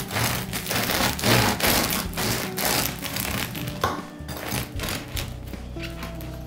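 Serrated bread knife sawing through the hard crust of a freshly baked no-knead loaf in quick repeated strokes, the crust crunching with each pass. Background music plays underneath.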